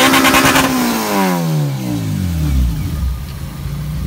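A Honda K20 four-cylinder engine, swapped into an EK9 Civic Type R, revved high and dropping back in pitch over about two and a half seconds, then settling into a steady idle.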